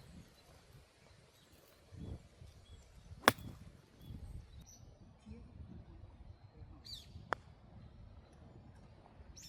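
A golf club strikes a ball once, a single sharp crack about three seconds in, with a smaller click about four seconds later. Wind rumbles on the microphone throughout.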